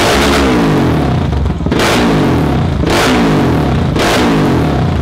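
KTM 690 LC4 big single-cylinder engine revved through a Leo Vince SBK slip-on exhaust. The throttle is blipped sharply about once a second, and the revs fall away between blips.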